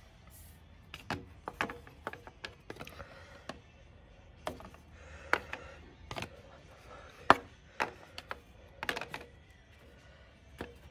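Irregular plastic clicks and knocks as the Harley-Davidson oil cooler fan kit's plastic housing is worked by hand into place over the oil cooler, the sharpest knock about seven seconds in.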